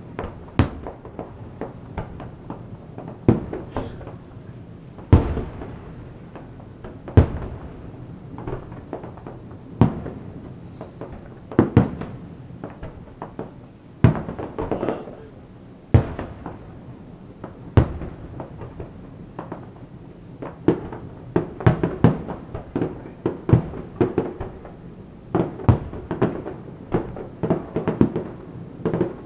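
Aerial firework shells bursting, one sharp boom about every two seconds at first, then coming faster and overlapping in the last third, with smaller pops in between.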